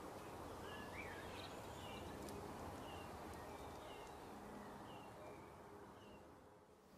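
Faint outdoor ambience: a steady hiss with small birds chirping, short high calls about once a second and one rising call about a second in, fading out near the end.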